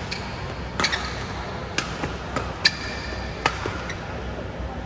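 Badminton racket strikes on a shuttlecock in a rally: four sharp, ringing hits about a second apart, the last a little past three seconds in, over a steady hall hum.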